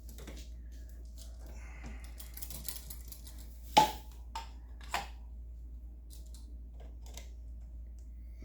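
Light clicks, taps and rustling from hands handling electrical wires at a wall switch box. The sharpest click comes about four seconds in and another about a second later.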